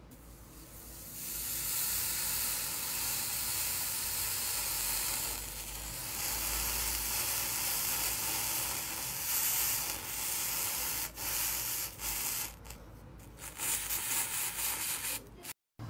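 Green floral foam crushed under a metal potato masher: a steady crisp crackling hiss as the foam crumbles. Near the end it comes in short spurts with brief gaps, then cuts off suddenly.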